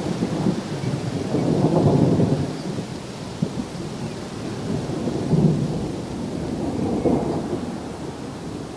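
Thunder rumbling in several rolls over a steady hiss of rain. The loudest roll comes about two seconds in, with further rolls past the middle and near the end.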